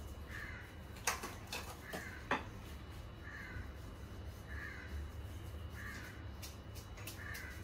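A crow cawing faintly in the background, one short caw about every second and a bit, over a low steady hum. Two sharp clicks stand out in the first few seconds.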